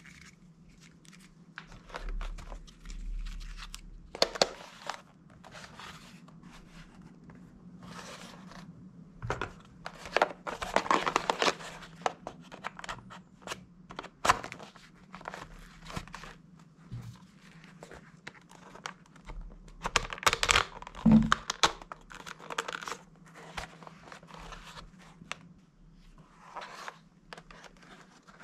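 Hard plastic toy rifle parts being handled and fitted together: scattered clicks, knocks and rustling scrapes of plastic at an irregular pace, over a faint steady low hum.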